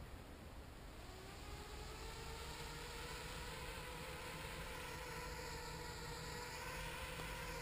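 HK 250 mini quadcopter's electric motors and propellers spinning up about a second in: a whine that rises slightly in pitch and then holds nearly steady, growing a little louder.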